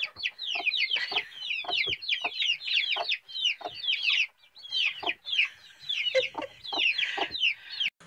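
Chicks peeping rapidly, a dense run of short high peeps that fall in pitch, with a hen's low clucks among them.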